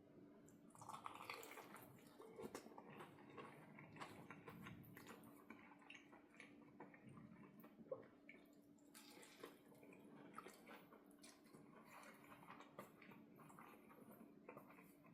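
Faint close-up eating sounds: chewing with many small wet clicks and squishes, over a steady low hum.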